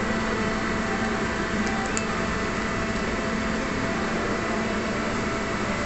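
Steady mechanical hum and hiss with a low drone, with a few faint clicks about two seconds in.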